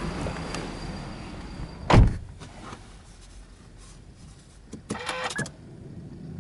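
Subaru Impreza car door shutting with one solid thump about two seconds in, after which the outside noise drops away. Near the end there is a quick cluster of clicks with a short tone as the ignition is switched on.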